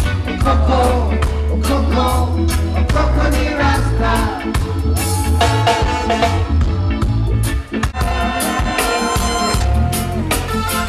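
Live band music: a lead singer over electric guitar, horns, drum kit and a strong bass line.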